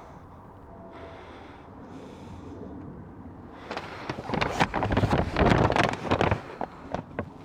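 Rustling and buffeting noise on the microphone: a loud burst of crackling rustle starts about halfway through and lasts a couple of seconds, over quiet background.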